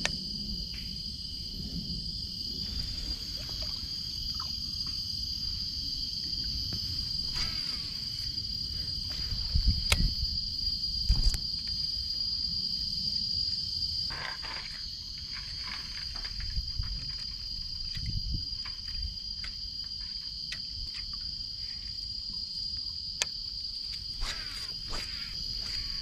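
Insects in mangrove trees keeping up a steady, high-pitched drone, with a low rumble of wind or handling underneath and a few short thumps and clicks, the strongest about ten seconds in.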